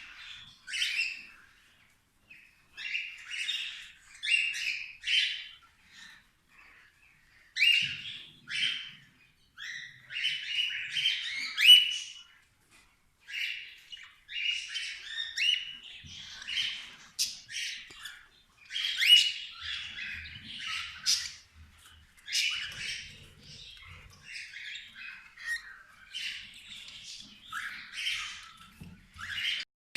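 Cockatiels calling: short harsh chirps and squawks, repeated in quick clusters with brief pauses between them.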